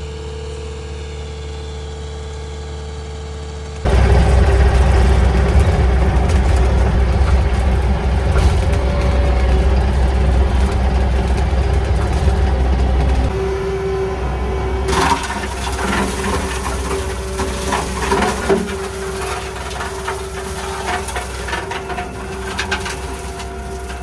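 Kubota SVL65 tracked skid steer's diesel engine running: a steady hum at first, then much louder as heard from the operator's seat from about four seconds in. From around the middle on, clattering knocks come in over the engine.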